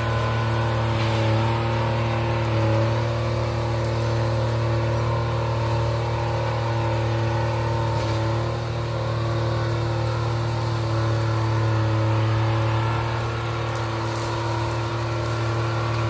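Timberjack skidder's diesel engine running steadily, its engine speed rising and easing slightly.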